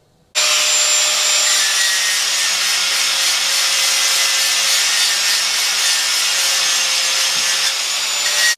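Handheld electric angle grinder grinding metal off a crankshaft counterweight, taking weight off the heavy side to balance the crank. Steady, loud grinding with the motor's whine underneath; it starts about half a second in and cuts off suddenly near the end.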